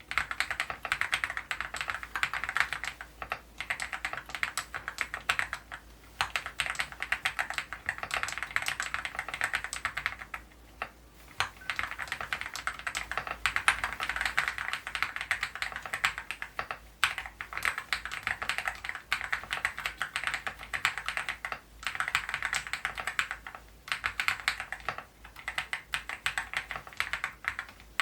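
Continuous typing on a Leobog Hi75 full-aluminium mechanical keyboard with KTT Red Wine linear switches and XDA-profile keycaps: a dense stream of key clacks with a few brief pauses, the longest about ten seconds in.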